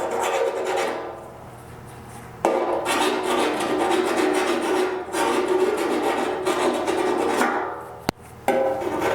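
Plucked-string background music over the scraping of a saw-like body-filler shaping tool rasping a scratch pattern into dents in a metal motorcycle gas tank. The sound drops away briefly about a second in and again near the end, and comes back suddenly each time.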